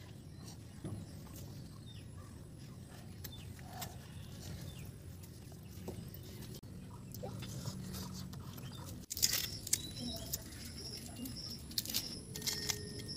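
Wilted leaf wrapping rustling and crinkling as a cooked chicken parcel is opened by hand, over an outdoor background with a few faint chirps. About nine seconds in it changes to sharper small clicks and scrapes of a knife peeling an onion.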